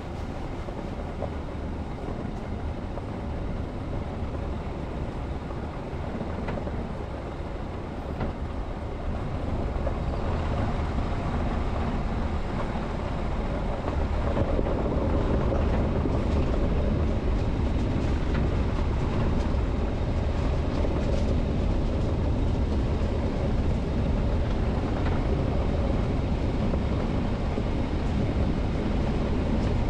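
A vehicle driving: a steady road-noise rumble, growing louder about ten seconds in and again about fourteen seconds in.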